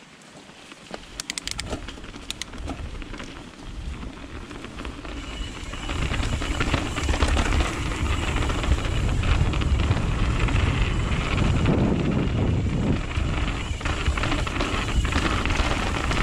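A mountain bike rolling down a dirt trail, picking up speed: a few sharp clicks a second or two in, then from about six seconds in a louder, steady low rumble and rush of tyres on dirt and air going past.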